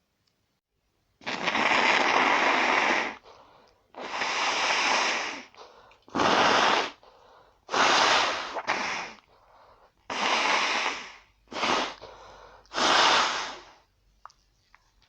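A person blowing their nose hard, eight noisy blasts in a row: the first about two seconds long, the others from under half a second to about a second and a half.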